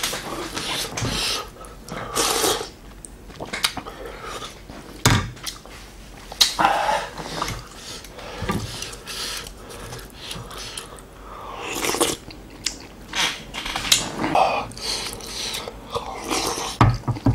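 Close-miked eating sounds: chewing and slurping mouthfuls of spicy beef soup with rice and noodles. A spoon and chopsticks clink against the ceramic bowl a few times.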